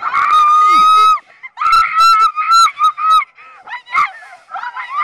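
Two young women screaming in fright on a giant swing thrill ride: one long, high scream held for about a second, then a run of short shrieks, easing into quieter cries and gasps near the end.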